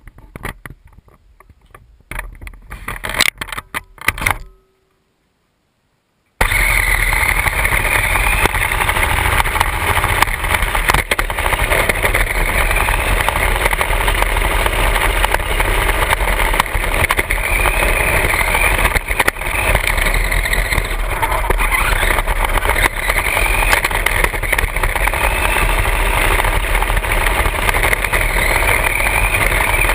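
Knocks and rustles of the camera being handled, then a short silence, then an RC car driving with the camera on its hood: the motor whining up and down with the throttle over steady rolling noise from its tyres on asphalt.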